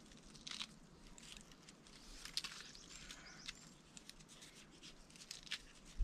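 Faint crackling and small snaps as fresh shiitake mushrooms are twisted and pulled off a log by hand, with scattered light clicks.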